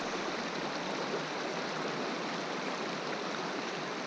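Steady rush of a fast-flowing stream's current over rocks.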